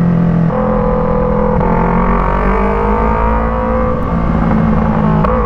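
Yamaha MT-03's parallel-twin engine running through an Arashi aftermarket exhaust with a dB killer fitted, heard while riding. The engine note changes about half a second in, then rises slowly over the next few seconds.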